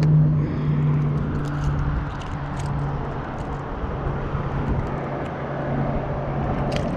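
Steady motor hum, holding one low pitch throughout, with a few light clicks over it.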